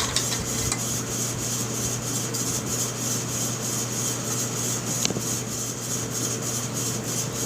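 Steady background hum and hiss, with two faint clicks from the Stevens 320 shotgun's bolt and firing pin being handled, one at the start and one about five seconds in.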